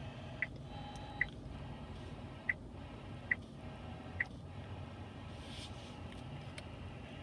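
Short, clean electronic beeps from the car's infotainment touchscreen as its buttons are pressed, five of them at uneven intervals over the first four seconds, over a faint steady low hum in the cabin.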